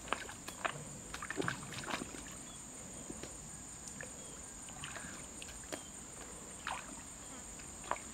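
Hands sloshing and groping in shallow muddy stream water for snails: irregular small splashes and clicks. A steady high-pitched insect drone runs underneath.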